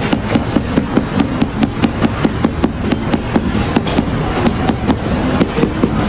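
A quick, uneven series of sharp knocks, about three or four a second, from tile-setting work.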